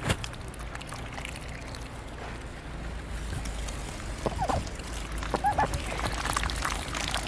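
Ducks dabbling their bills in slushy, ice-filled water, with small sloshing and dribbling splashes. A few short, soft duck calls come in about halfway through.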